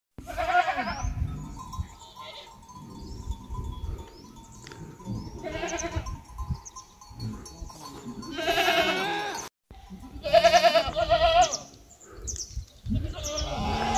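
Goats bleating, about five separate calls with a wavering, quavering pitch.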